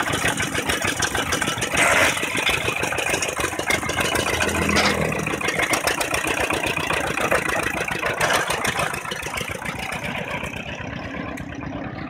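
Single-cylinder diesel engine of a two-wheel walking tractor running, a steady rapid pulsing with some rattle. It grows quieter in the last couple of seconds.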